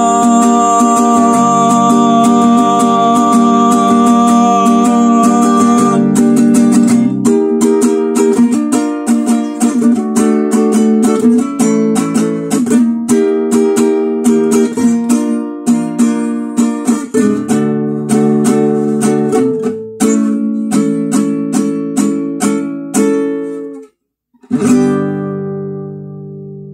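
Acoustic guitar playing a song's closing bars: held chords, then steady strumming. Near the end it stops dead for a moment, then a final chord is struck and left to ring out.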